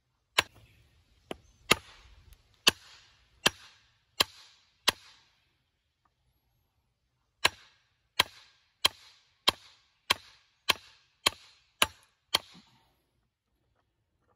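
Hammer blows on the end of a wooden post that is driving a tractor clutch throwout bearing off its carrier. There are about sixteen sharp strikes, roughly one and a half a second, in two runs with a short pause between them.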